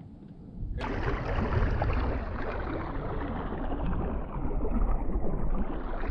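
Bass boat moving through the water: a steady rushing of water and wind noise with a low rumble, cutting in suddenly about a second in.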